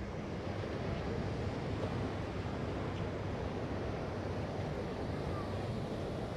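Steady rushing of wind and distant ocean surf, an even noise with no distinct events.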